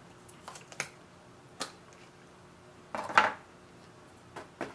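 Small plastic takeout sauce cup being handled and its lid pried open: a few light plastic clicks and taps, with one louder crackle about three seconds in.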